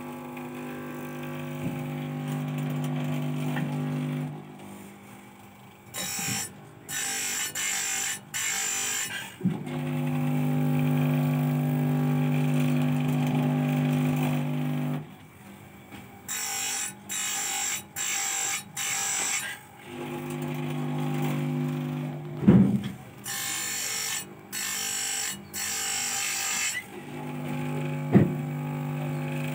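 Electric chainsaw chain sharpener running with a steady motor hum. In three spells its grinding wheel is brought down onto the saw chain's teeth, about four short hissing grinds each time, one tooth per stroke. Two sharp knocks come near the end.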